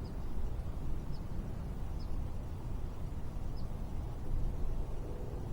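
Steady low outdoor rumble with a faint, short high chirp heard four times at uneven gaps.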